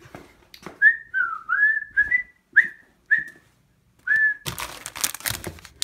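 A person whistling a string of short notes at about the same pitch, one dipping down and back up. About four and a half seconds in, the whistling gives way to rustling and knocking of things being handled.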